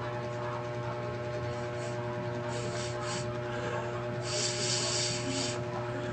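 Sipping through a thin straw from a small plastic drink bottle: two brief airy sucking hisses about two and a half seconds in, then a longer one about four seconds in. A steady electrical hum runs underneath.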